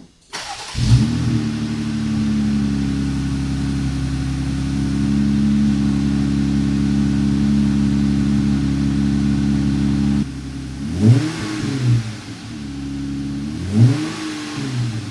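2020 Jeep Gladiator's 3.6-litre V6 running through a Magnaflow Street Series cat-back dual-tip exhaust: it starts, catching with a flare of revs under a second in, and settles to a steady idle. About two thirds of the way through, the throttle is blipped several times, each rev rising and falling quickly.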